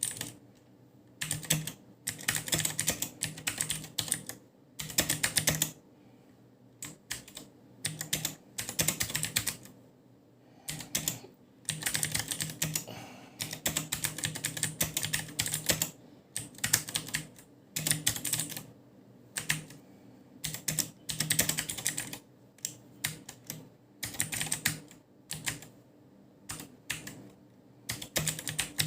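Typing on an Akko 3108 v2 mechanical keyboard with Akko blue switches: bursts of rapid keystrokes, each burst a second or two long, separated by short pauses.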